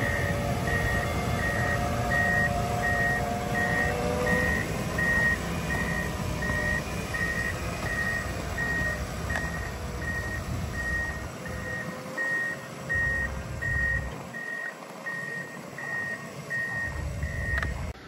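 PistenBully 100 snow groomer's reversing alarm beeping steadily in even, regular beeps over the low rumble of its diesel engine. Both cut off suddenly near the end.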